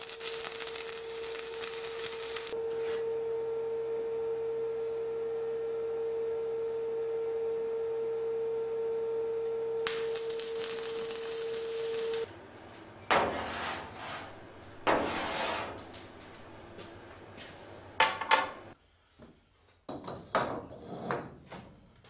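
Stick (arc) welding: short crackling runs of the electrode arc tacking a handle bar onto a stacked Damascus billet, the longest near the middle, over a steady hum. About halfway through the hum stops, and a few separate knocks follow as fire bricks are handled and set at the forge.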